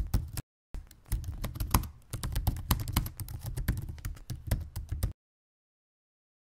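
Keyboard typing sound effect: rapid, irregular key clicks in runs, with two short pauses, then cutting to dead silence about five seconds in.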